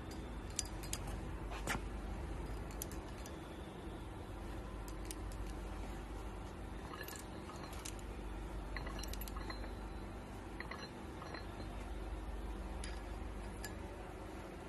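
Scattered light metallic clicks and clinks of steel parts of an eccentric casing drill bit being handled, as small steel balls are fitted into its guide and the assembly is turned. A steady low hum runs underneath.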